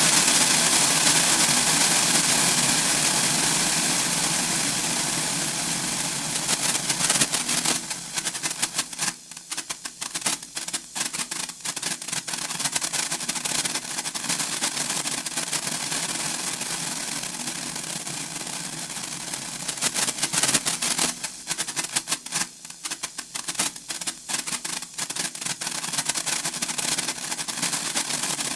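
Japanese senko hanabi sparklers crackling and fizzing, a dense stream of rapid tiny pops. Twice, about eight and twenty seconds in, the crackle thins to scattered separate pops before filling back in.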